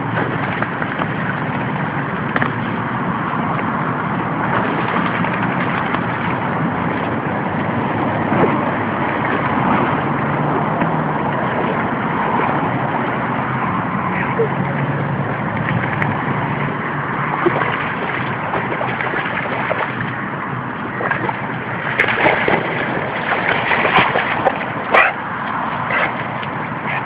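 A dog splashing about in shallow floodwater: a steady rushing wash of water, with a run of sharper splashes near the end.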